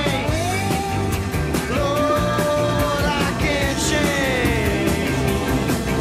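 Rock music with a steady beat and a lead melody that holds notes and slides between them.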